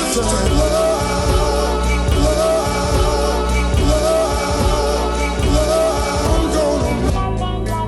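Produced music with a steady bass line and a wavering melody line, possibly a sung or sampled vocal; the texture thins and changes about seven seconds in.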